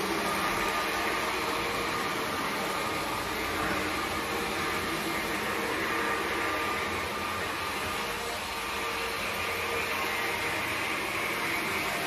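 Vorwerk Kobold cordless stick vacuum running steadily, its carpet attachment being pushed back and forth over a hallway rug. On the rug the vacuum senses the carpet and runs at its louder carpet setting.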